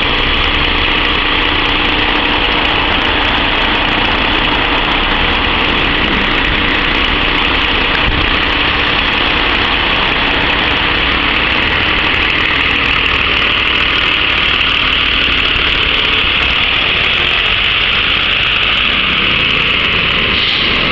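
A MAN fire engine's diesel engine runs steadily at idle and keeps running as the appliance moves out of the bay onto the road.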